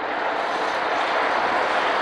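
Two coupled Tatra KT4D trams running past, a steady rolling noise that grows slightly louder.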